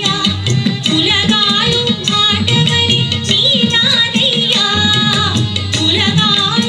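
Tamil devotional song to Murugan: a wavering, ornamented singing voice over a steady pulse of hand-drum strokes.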